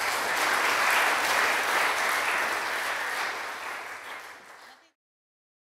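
Audience applauding, tailing off and cut off abruptly about five seconds in.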